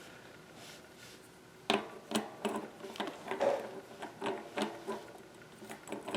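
Bicycle cassette sprockets and spacers clicking and clinking against each other and the freehub as they are worked into line with the splines. The clicks are irregular and start about one and a half seconds in, some with a brief metallic ring.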